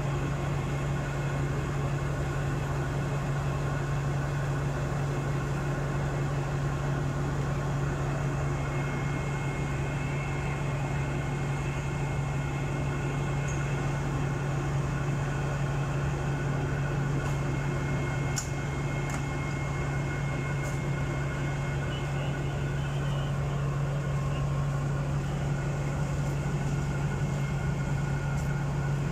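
Alsthom diesel-electric locomotive 4301 idling at standstill: a steady low engine hum with a faint higher whine, unchanging in level.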